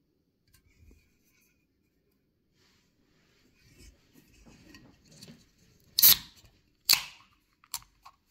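A 0.5-litre aluminium can of Platan Desítka beer being opened: fingers fiddling at the pull tab, then a sharp crack of the tab with a brief hiss about six seconds in, a second loud snap a second later, and a small click near the end.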